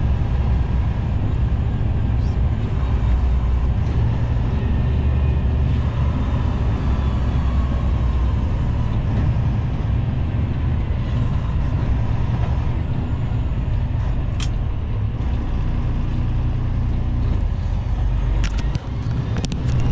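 Semi truck's diesel engine running with road noise, heard inside the cab while driving, as a steady low rumble. A few short sharp clicks come near the end.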